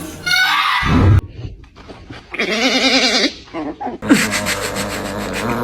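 An animal's wavering, bleat-like call lasting about a second near the middle, after a short heavy thump in the first second.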